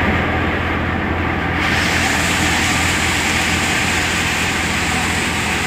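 Tractor-driven chickpea threshing machine running while being fed chickpea plants: a loud, steady drone with a constant low hum under a rushing noise. It sounds muffled for about the first second and a half.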